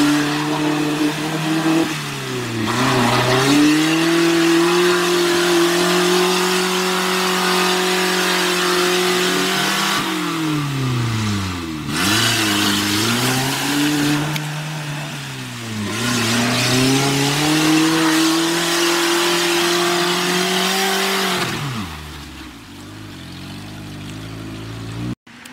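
Off-road vehicle's engine revving hard and held at high revs. The revs sag and climb back three times, then fall away about 21 seconds in, and the sound cuts out briefly near the end.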